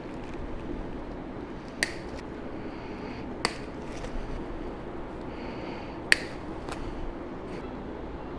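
Three sharp, short snaps spaced a couple of seconds apart: parts and packaging being handled during an unboxing. A steady low room hum runs underneath.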